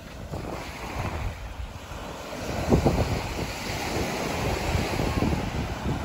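Small waves washing onto the shore, with wind buffeting the microphone; the strongest gust comes a little before halfway through.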